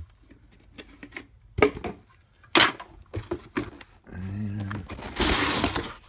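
Hard plastic parts of a stick vacuum's wall-mount bracket clicking and knocking together as they are handled, a few separate clacks. Near the end, a loud rustling scrape of cardboard box flaps being handled.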